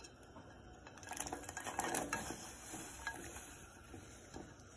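Almonds, pistachios, walnuts and spices tipped off a ceramic plate into a saucepan of milk: about a second and a half of small clicks and scraping as they slide off the plate and drop in, with a faint steady hiss.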